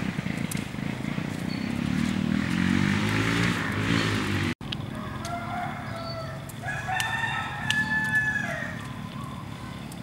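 A rooster crows once, a drawn-out crow of about two seconds starting past the middle. Before it, the bamboo slat mat rustles and rattles as it is handled, with a brief dropout in the sound just before halfway.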